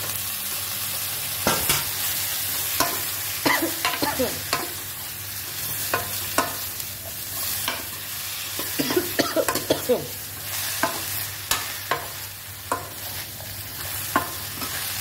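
Ridge gourd sabzi being stirred in a hot, thin kadhai: a steady sizzle of frying, broken by repeated knocks and scrapes of the stirring utensil against the pan.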